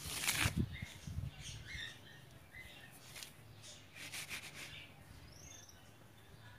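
Birds chirping outdoors: scattered short high chirps and one gliding call, with a couple of brief rustling bursts near the start and about four seconds in.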